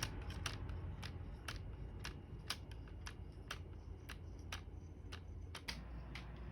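Homemade pendulum clock built from craft paper, its escapement ticking faintly and steadily at about two ticks a second.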